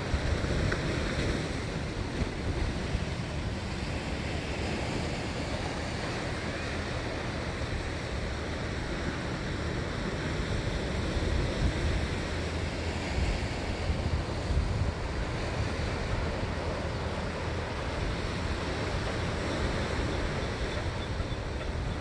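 Pacific Ocean surf breaking and washing in a continuous rush, swelling louder around the middle, with low rumble from wind on the microphone.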